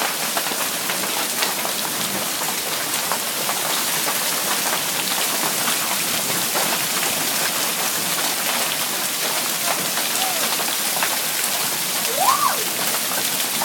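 Torrential rain pouring down steadily, with many drops spattering on hard surfaces. Near the end a brief rising-then-falling tone rises above it.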